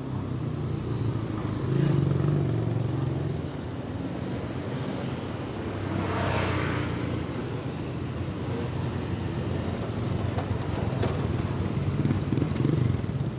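Street traffic: small motorcycle engines running with a steady low hum, one vehicle passing close about two seconds in and another passing with a rushing sound around six seconds in.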